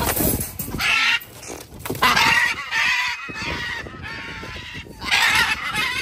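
Macaws screeching: four harsh, loud squawks, the longest running about a second from two seconds in.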